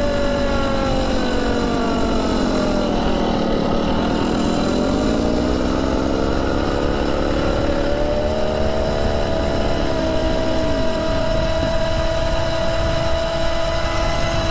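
Motorised hybrid bicycle's drive whining under way, its pitch dropping over the first few seconds, climbing back as the bike picks up speed and then holding steady, over a constant rush of wind.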